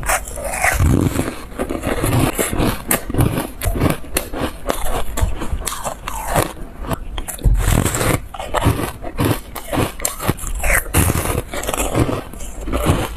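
Close-miked crunching of yellow foam ice being bitten and chewed, a quick, uneven run of crisp crunches.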